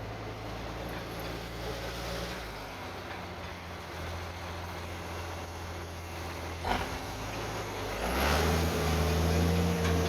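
M35A2 military truck's multifuel turbodiesel engine running steadily, then pulling harder about eight seconds in, its note rising and growing louder. A single sharp knock comes shortly before.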